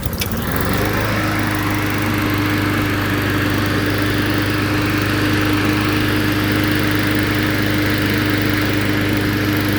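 Honda GCV160 single-cylinder overhead-cam engine on a Honda HRR216 push mower, cold-started on its automatic choke: it picks up speed over about the first second, then runs steadily.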